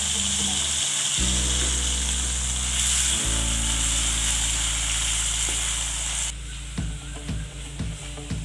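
Background music with long held notes over the sizzle of onions and tomatoes sautéing in oil in an aluminium kadai. The sizzle falls away about two-thirds of the way in, and a few irregular knocks follow as the wooden spatula stirs the pan.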